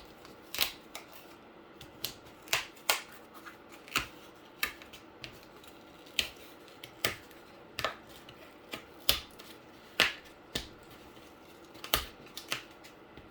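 Cardboard being creased and bent by hand: an irregular string of sharp crackles and snaps, about one or two a second.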